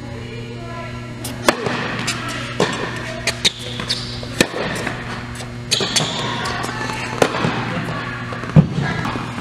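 Tennis balls struck by rackets and bouncing on an indoor hard court during a rally: sharp pops roughly every half second to second and a half, each with a short echo from the hall. A steady electrical hum runs underneath.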